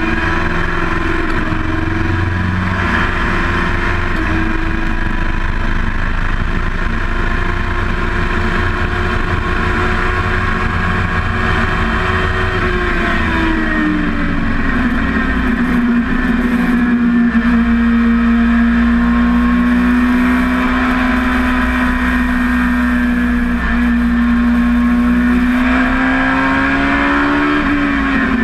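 Dwarf race car's motorcycle engine running hard at high revs, heard from inside the cockpit. The revs ease down about halfway through and hold lower, then rise briefly and drop again near the end.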